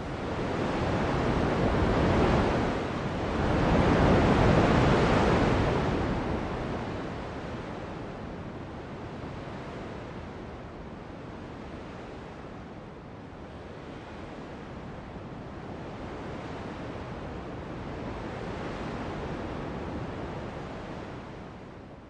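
Rushing wind and small waves washing against a rocky shoreline, with two louder swells in the first six seconds, then a steadier rush.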